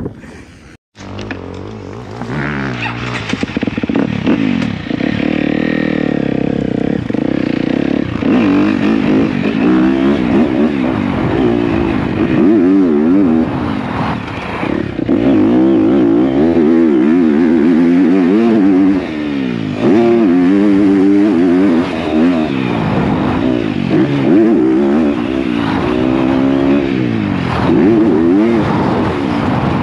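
2023 motocross bike's engine being ridden hard on a dirt track, heard from on the bike, its pitch climbing and falling back over and over as the throttle is worked through the gears.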